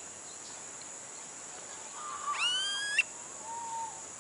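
A bird gives one rising, whining call about two seconds in, ending in a sharp click, followed by a short, softer whistle near the end. A steady high insect drone runs underneath.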